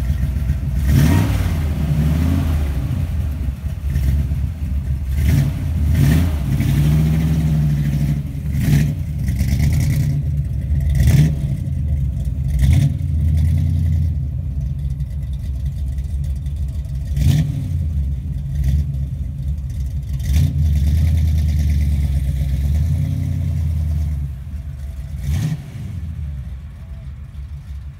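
1957 Ford sedan's engine running with a low exhaust note, revved up and down several times as the car pulls away, then fading as it drives off near the end.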